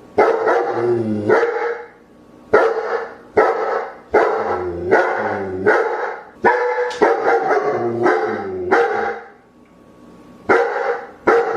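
A dog barking repeatedly, about one to two barks a second, with a pause of a second or so near the end before two more barks.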